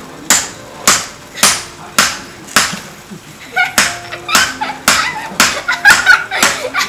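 A steady run of sharp slaps or strikes, about two a second, with people's voices and laughter joining in over the last few seconds.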